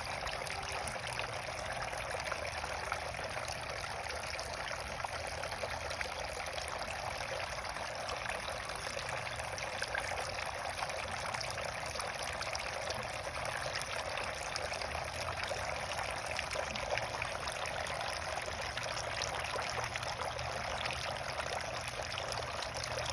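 Water fountain running, water splashing and trickling steadily.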